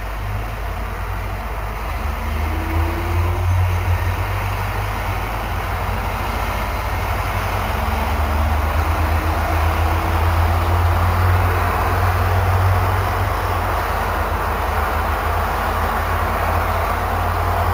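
Road traffic on a city street: cars driving past over a steady low rumble, the passing noise swelling about halfway through.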